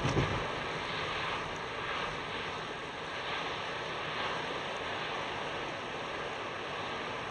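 Steady rushing tyre and wind noise heard from inside a moving car's cabin, with a short low thump just at the start.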